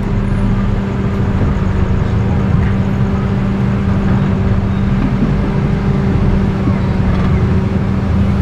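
Steady street traffic noise with a constant low motor hum and no distinct events.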